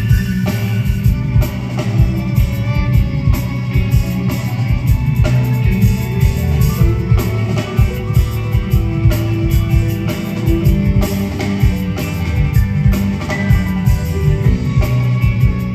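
Live prog rock band playing an instrumental passage: a drum kit keeping a steady, busy beat under electric guitars, bass, keyboards and violin.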